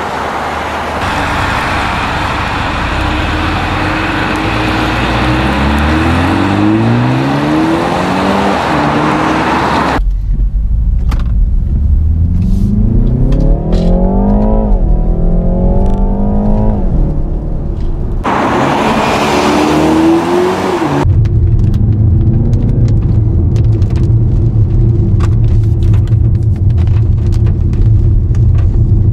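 BMW 330i (G20) turbocharged four-cylinder engine accelerating through the gears, its pitch climbing and dropping back at each upshift, in several short clips cut together. In the first few seconds there is a heavy tyre hiss from the wet road. Near the end the engine settles into a steady low cruising drone.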